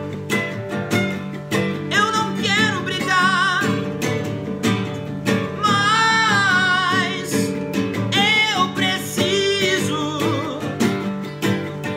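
Two acoustic guitars, a steel-string and a nylon-string classical, strummed and picked together. A man sings long, wavering phrases over them, starting about two seconds in and fading out near the end.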